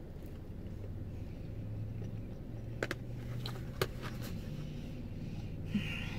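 Low steady hum inside a parked car's cabin, with a few faint clicks about three and four seconds in.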